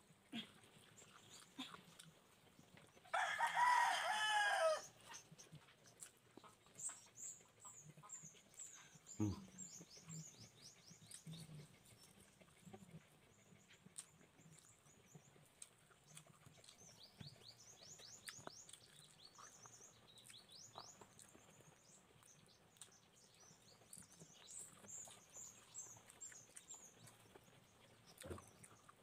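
A rooster crows once, a long call about three seconds in. Small birds then chirp in quick high runs through most of the rest.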